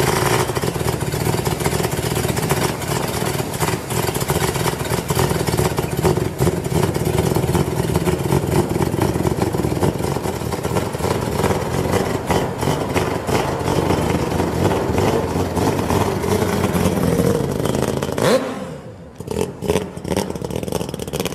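Mazda RX-7 FD's 13B twin-turbo rotary engine running steadily through its exhaust. Near the end the sound drops away into uneven, quieter running with a string of short pops.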